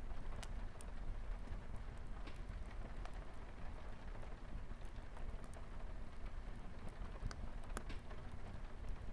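Wood fire crackling in a fireplace, with irregular sharp pops and snaps over a steady low rumble, together with light rain pattering on a window.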